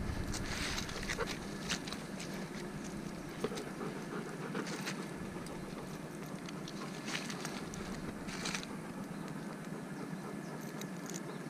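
Close rustling and handling noise with scattered light clicks, around a Belgian Malinois in a leather harness pressed up against the microphone.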